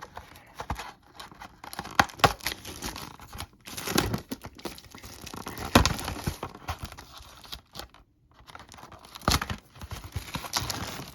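Hands opening a cardboard trading-card box: rustling, crinkling and tearing of the packaging, broken by scattered sharp knocks and clicks.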